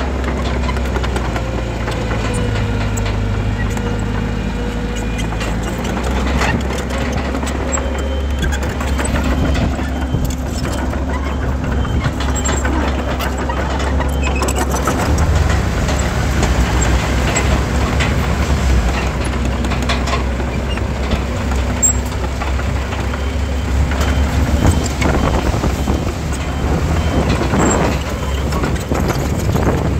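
Heavy diesel earthmoving machinery running, with a steady low engine note. A faint whine is heard in the first several seconds, and scattered metallic clanks run through it.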